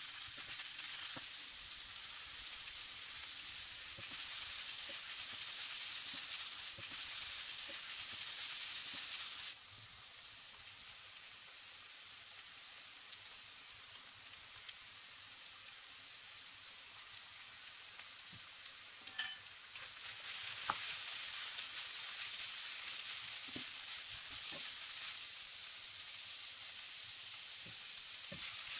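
Minced meat frying in a pan: a steady sizzle with occasional scrapes and taps of the stirring spoon. The sizzle drops quieter about a third of the way through and comes back louder about two-thirds through, just after a short ringing tap and a sharp knock.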